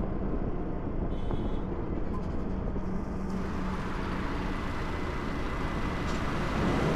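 Steady low rumble and hiss of a running vehicle, with a faint steady hum underneath.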